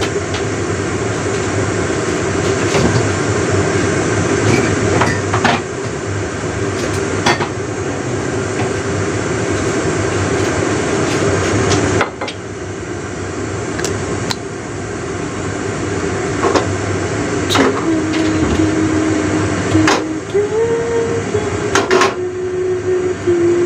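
Steady hiss of a gas stove burner under a frying pan of heating cooking oil, with scattered sharp knocks and clicks. A faint held tone comes in near the end.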